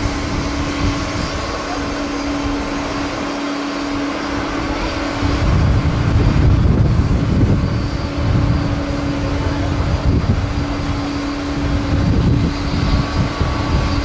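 Jet engines of a Boeing 737 airliner on the runway, with a steady hum and a deep, gusty rumble that swells about five seconds in.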